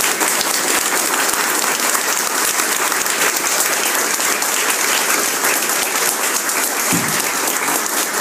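Audience applauding, many hands clapping steadily together.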